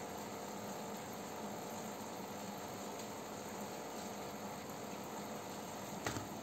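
Aquarium submersible pump and aeration running steadily: a constant hum with a watery hiss, and one short knock near the end.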